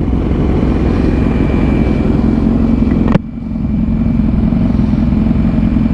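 Motorcycle engine running steadily at low revs. About three seconds in there is a sharp click, after which the sound dips and builds back up.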